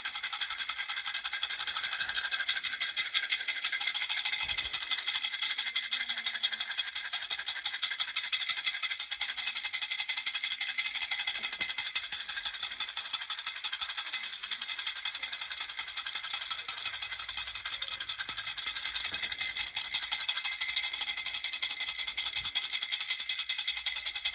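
Baby rattle toy shaken steadily and quickly, a continuous, even rattling of many small clicks.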